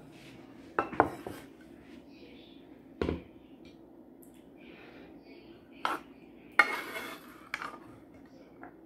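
A metal cooking pot set down on a wooden table with a heavy knock about three seconds in, among a few sharper clicks, then a metal serving spoon clinking and scraping against the inside of the pot as baked beans are scooped out.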